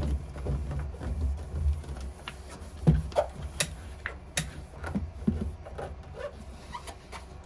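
Hands pressing and smoothing foil-faced Boom Mat sound-deadening sheets onto a truck cab's metal wall: scattered taps, crinkles and light knocks over a low rumble, the sharpest knock about three seconds in.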